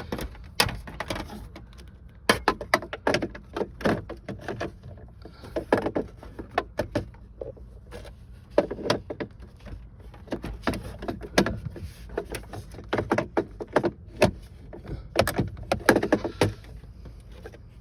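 Socket ratchet clicking in short runs of sharp clicks, with pauses between them, as it backs out the instrument cluster's screws.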